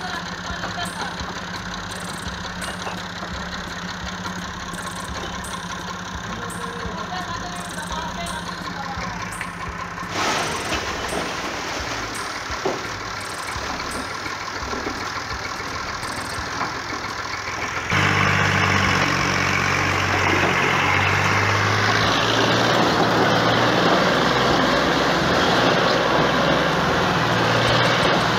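Massey Ferguson 240 tractor's three-cylinder diesel engine idling steadily, then running much harder and louder from about eighteen seconds in, its pitch wavering, as it strains against a stuck, brick-loaded tipping trolley. Toward the end, bricks slide and tumble off the raised trailer bed.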